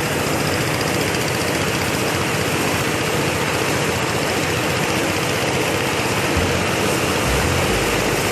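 An engine running steadily at constant speed.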